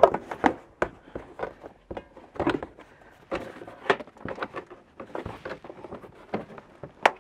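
Plastic inner wheel-arch liner being flexed and pulled out of a wheel well: irregular plastic scraping and rubbing with many clicks and knocks, and a sharp click near the end.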